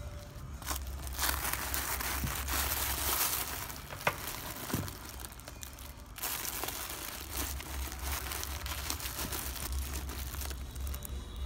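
Crumpled tissue-paper stuffing inside a handbag crinkling and rustling as hands rummage through it, in two long stretches, with a couple of sharp clicks about four seconds in.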